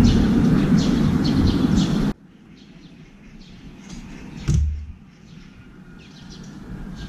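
A crow lands on a stainless steel feeding tray with a single sharp thump about four and a half seconds in. Before that, a steady low rumble cuts off suddenly about two seconds in, and faint chirps of small birds sound in the background.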